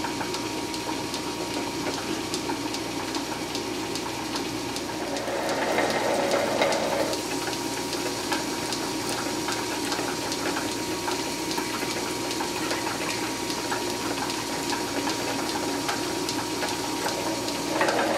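Metal lathe running while a twist drill in the tailstock drill chuck bores a 5/16-inch hole into metal bar stock held in the spinning chuck: a steady machine hum with a faint constant whine. The drilling noise grows louder for a second or two about six seconds in and again near the end.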